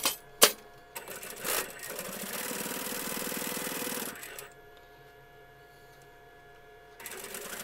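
Sewing machine stitching a seam along a batting-quilted fabric strip at a short stitch length. It runs steadily for about three seconds, stops, and starts up again near the end. Two sharp clicks come just before the first run.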